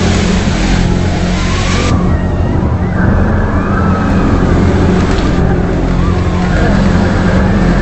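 Loud, steady low droning hum made of several layered deep tones, with a rushing noise above it that drops away about two seconds in: the unexplained 'strange sound in the sky'.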